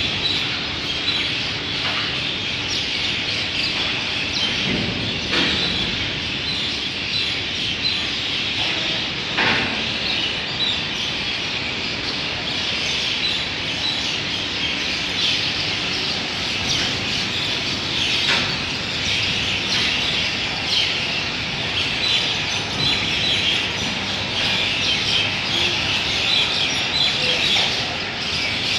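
Many small birds chirping continuously, with a few short knocks now and then.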